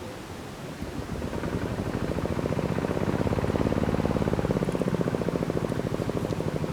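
A small engine running with a rapid, even pulse, growing louder from about a second in and then holding steady.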